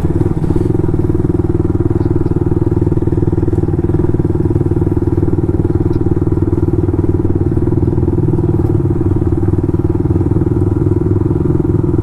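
Motorcycle engine and exhaust running steadily at an even, unchanging engine speed, with no revving.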